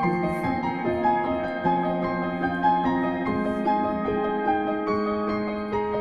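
Soft piano background music, a slow melody of held notes.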